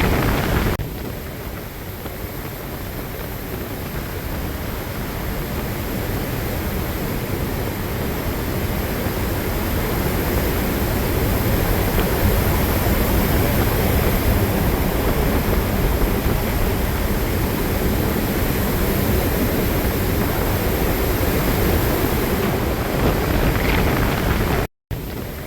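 Storm-force wind in the open North Pacific blowing across the microphone, mixed with the rush of the ocean's waves, in a steady dense noise. The sound changes abruptly about a second in and drops out briefly near the end.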